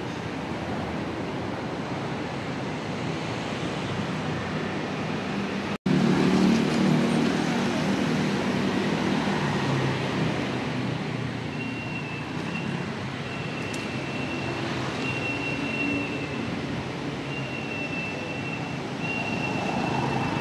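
City street traffic: a steady noise of passing vehicles, which drops out for an instant about six seconds in and comes back louder. A faint high tone comes and goes in the second half.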